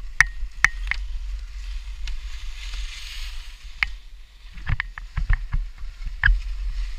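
Low wind rumble on the microphone, with scattered sharp clicks and knocks, several of them bunched together in the second half.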